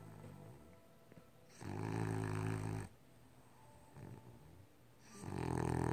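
A sleeping pet snoring: two loud, pitched snores, one about a second and a half in and another near the end, with soft breathing between them.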